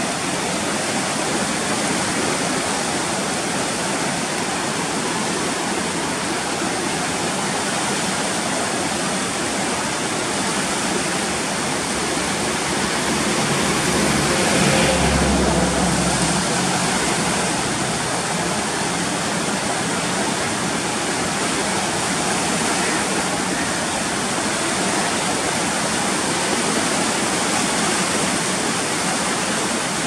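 Floodwater of the Koshi River at danger level rushing and churning past the barrage, a steady, even rush of water. A low rumble swells briefly about halfway through.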